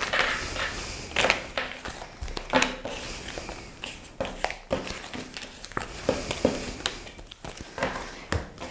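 A deck of tarot cards handled and shuffled by hand: irregular soft slides, flicks and taps of card on card and on the tabletop.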